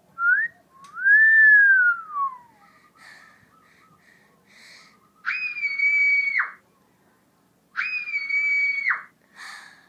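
Whistle sound effects: a short upward whistle, then a long whistle that rises and falls. Two steady, flat whistle blasts follow, each a little over a second long, about two and a half seconds apart.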